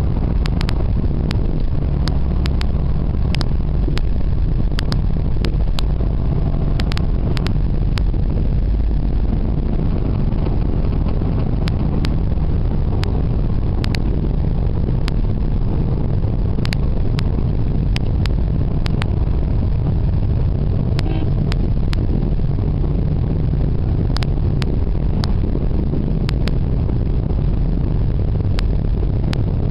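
Steady low rumble of a car driving, engine and road noise heard from inside the cabin, with scattered sharp clicks throughout.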